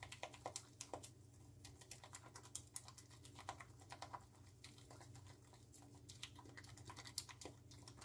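Faint, rapid, irregular clicking and scraping of a silicone spatula against a ceramic bowl as a thick flour-and-water sourdough starter is beaten until smooth and free of lumps.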